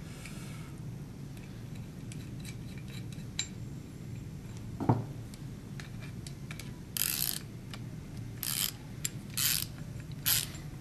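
Half-inch socket ratchet clicking as a nut is run down on a carriage bolt, in short bursts of clicks, one per swing of the handle. The bursts come about once a second in the second half, after a single metal click about halfway.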